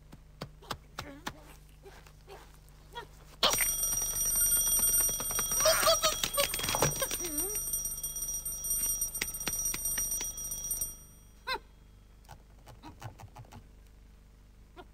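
An alarm-clock-type bell ringing continuously, starting suddenly a few seconds in and cutting off about seven seconds later. A short gliding cartoon-penguin squawk sounds over the ringing partway through, and faint light taps are heard before and after it.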